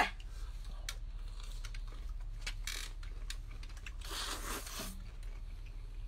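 Stir-fried noodles being slurped and eaten: scattered small clicks and mouth sounds, with one longer slurp about four seconds in, over a low steady hum.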